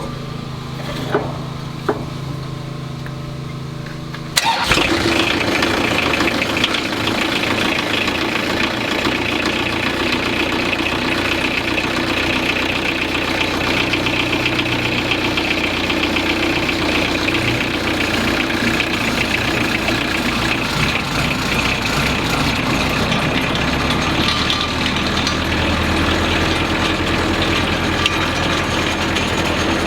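Echo Bearcat wood chipper's glow-plug diesel engine started: a steady low hum, then about four and a half seconds in the engine starts abruptly and runs steadily and loud. Its low note changes after about twenty-three seconds.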